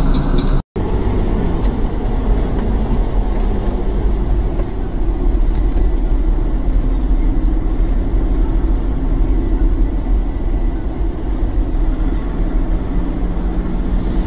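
Steady engine and road noise inside a moving car, picked up by a dashboard camera's microphone, with a split-second dropout near the start.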